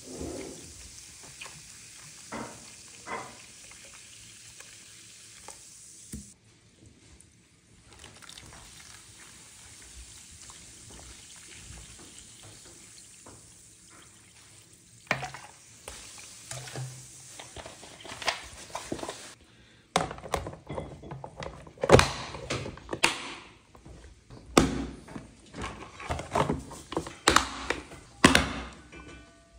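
Sparkling water fizzing as it is poured from a plastic bottle into plastic food containers. About two-thirds of the way through, the fizz gives way to a run of plastic clacks and thunks as clip-lock lids are pressed on and their latches snapped shut.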